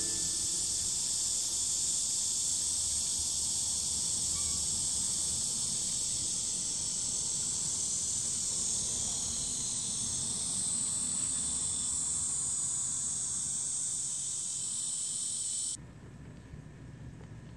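Steady, high-pitched chorus of summer insects droning without a break. It cuts off suddenly near the end.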